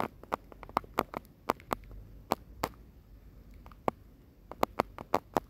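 A paper sewing pattern being slashed and spread open by hand: scattered sharp clicks and taps, about three or four a second, irregular.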